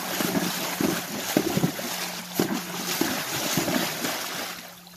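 A horse paws at shallow creek water with a booted front hoof, splashing it up in repeated strokes, about two a second, that die away near the end.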